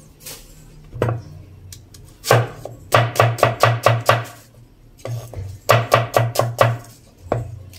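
Kitchen knife chopping a red onion on a wooden cutting board: sharp knocks against the board, in two quick runs of about five strokes each, with single strokes before, between and after.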